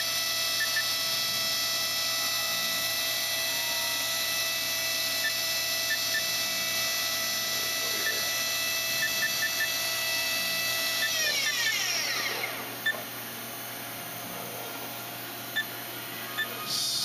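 Haas VF2 vertical machining center's 7,500 rpm spindle running at high speed with a steady multi-tone whine, then winding down in falling pitch to a stop about eleven seconds in. Near the end comes a brief high sound as keys are pressed on the control panel.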